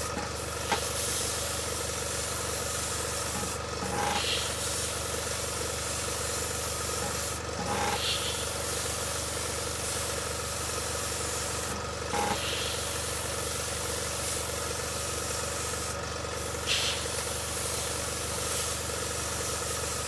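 Sparmax Max-3 dual-action airbrush hissing as it sprays fine paint lines, over the steady hum of the oil-less Sparmax ARISM AC66HX compressor. The hiss breaks off briefly about every four seconds as each stroke ends and the next begins.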